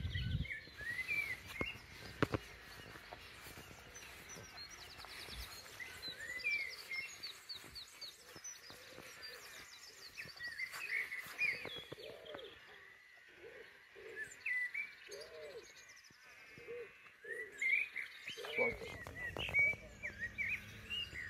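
Several songbirds chirping and singing over a faint outdoor background, with a lower call repeated several times in the middle.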